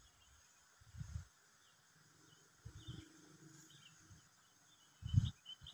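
Quiet forest ambience: faint short high chirps and a few dull low thumps, the loudest near the end.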